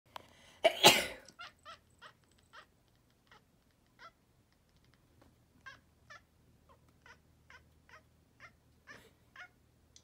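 A person sneezes once, loudly, just under a second in. A domestic cat answers with a string of about sixteen short meows, roughly one every half second, its typical response to its owner's sneeze.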